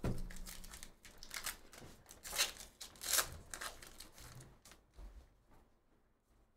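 Foil wrapper of an Upper Deck Goodwin Champions trading card pack being torn open and crinkled by hand, in a run of crackling bursts that are loudest about two and three seconds in. It dies down near the end as the cards come out.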